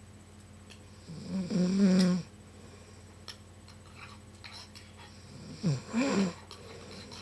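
A sleeping woman snoring loudly: two snores, each about a second long, about four seconds apart, the first about a second in and the second near the end.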